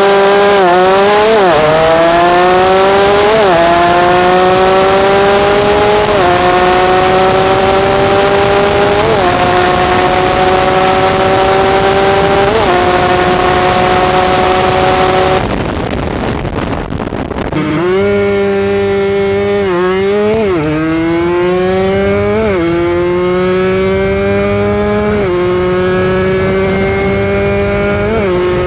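Kawasaki Ninja RR 150 two-stroke engine accelerating hard at full throttle. Its pitch climbs and drops back at each upshift, about five shifts in the first half. About halfway through the sound dips for a couple of seconds, then the engine pulls up through the gears again.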